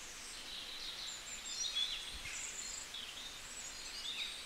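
Several birds chirping and twittering in quick, overlapping high calls over a soft outdoor hiss.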